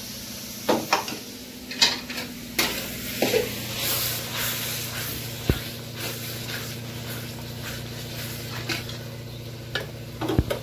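A metal spatula scraping and clicking against an aluminium kadai as spiced curry masala is stirred and fried, with the masala sizzling in the hot oil. A steady low hum runs underneath.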